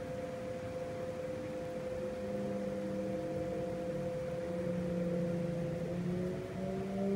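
Kintetsu 5800 series electric train heard from inside the car: a steady hum, then from about two seconds in several tones from the VVVF inverter and traction motors start and slowly rise in pitch as the train pulls away and gathers speed.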